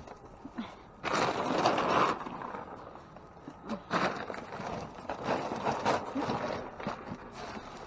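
Plastic trash bags rustling and crinkling, with things scraping as they are shifted by hand, in several bursts: about a second in, around four seconds, and again around five to six seconds.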